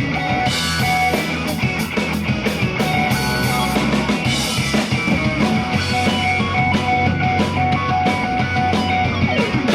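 Pop-rock song with drum kit and electric guitar playing over a stage sound system. A rising sweep begins near the end.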